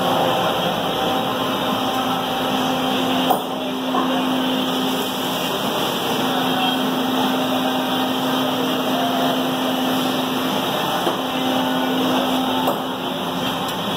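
Fabric bonding (laminating) machine with a conveyor belt running, its rollers turning as fabric feeds through: a steady mechanical running noise with a constant hum. A single sharp click about three seconds in.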